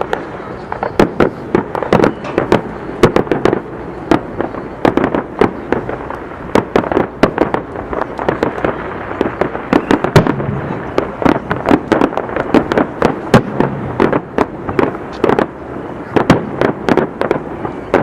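Aerial fireworks display: a dense, irregular barrage of loud bangs, several a second, over a continuous rumble of shell bursts.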